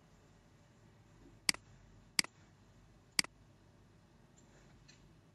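Computer mouse buttons clicking: three sharp clicks spread over about two seconds, and one more right at the end.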